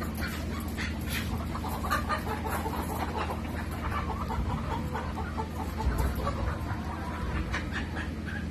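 A crowd of Dekalb Brown laying hens clucking in wire transport cages, many short overlapping calls, over a steady low hum.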